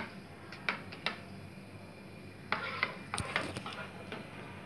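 A spoon stirring spiced yogurt in a bowl, with scattered clinks and short scrapes against the bowl.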